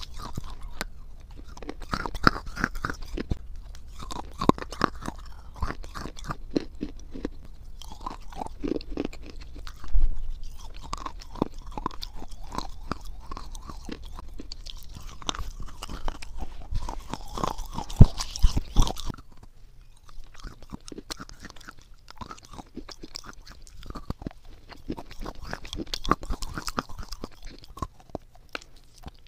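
Close-miked biting and chewing of clay and chalk: sharp crunches and snaps as pieces are bitten off, then steady crunchy chewing. The strongest bites come about a third and two-thirds of the way through.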